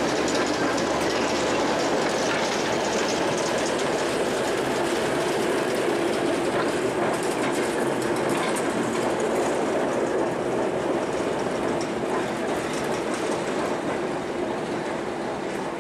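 A slow-moving rake of rail vehicles rolling past behind a Class 09 diesel shunter: steel wheels rumbling and clicking over the rail joints. The shunter's low engine hum dies away early on as it moves off.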